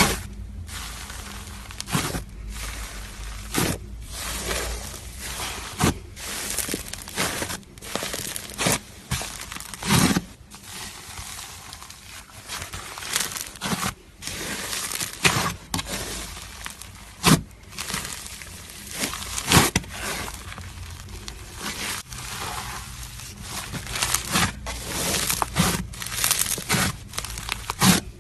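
Crunchy, bubbly slime being squished and worked by hand: constant fine crackling broken by irregular sharp pops as air bubbles burst, several of them loud.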